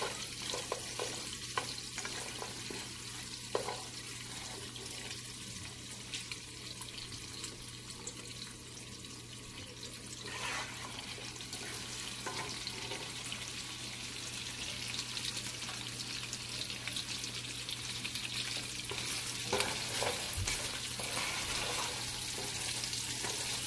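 Boiled lamb pieces and whole garlic cloves sizzling in oil in a nonstick pot over medium heat, with the plastic stirring spoon now and then clicking and scraping against the pot. The sizzle grows a little louder in the second half.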